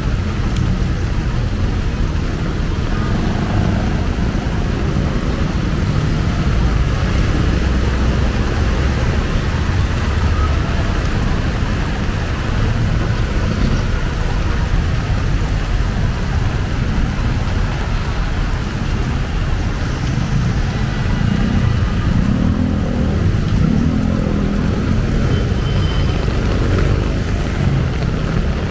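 Steady city street traffic noise, vehicles running past over the hiss of heavy rain, with a deeper engine sound swelling for a few seconds a little past the twenty-second mark.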